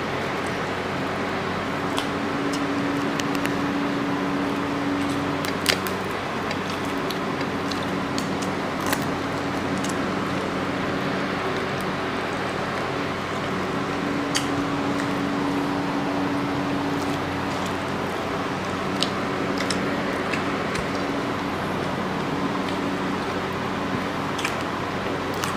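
Steady hum and hiss of an electric fan or air conditioner running. A few short, sharp clicks and smacks are scattered through it, from people eating rice and prawns by hand off plates.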